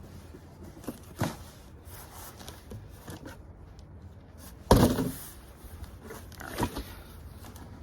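Cardboard boxes being handled and opened: a few scattered knocks and scrapes, with one loud thump a little before the middle and a smaller knock about two seconds later.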